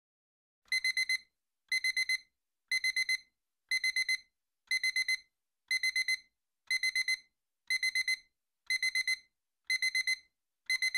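Electronic timer alarm beeping, alarm-clock style: quick groups of four short high beeps, about one group a second, starting just under a second in. It signals that the countdown has run out.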